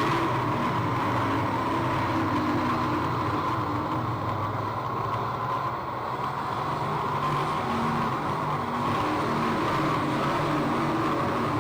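Engines of dirt track modified race cars running on the track during the race, a steady drone with shifting engine pitches that dips slightly in the middle.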